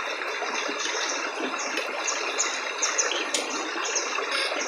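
Shallow stream running over rocks, a steady rush of water, with a faint high chirp repeating a few times a second over it and a single sharp click about three and a half seconds in.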